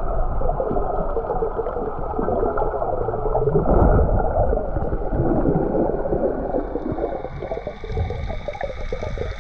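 Underwater sound picked up through a waterproof action-camera housing: muffled rushing water and gurgling bubbles, with a steady dense crackle, as a freediver duck-dives and kicks down. A faint steady high whine joins about two-thirds of the way in.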